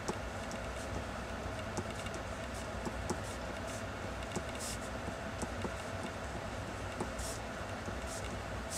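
Pencil drawing on paper: light taps of the lead and a few short scratchy strokes, about halfway and near the end, over a steady low room hum.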